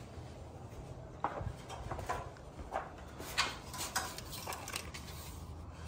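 Hard plastic toy parts clicking and clattering as a hand picks through them, a run of light knocks from about a second in that stops about a second before the end.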